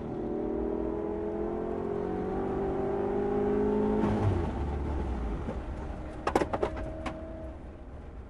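A 2005 Cadillac CTS-V's LS6 5.7-litre V8, heard from inside the car, pulls hard in third gear with its note rising. About four seconds in, the engine note cuts off suddenly as the engine fails near the top of third gear, leaving a low rumble and road noise as the car slows. About two seconds later comes a quick run of sharp knocks.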